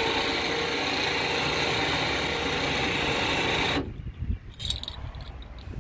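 A small 12-volt electric winch motor runs under power with a steady whir and a held tone, driving the wire-rope drum. It cuts off sharply about four seconds in, followed by a couple of light clicks.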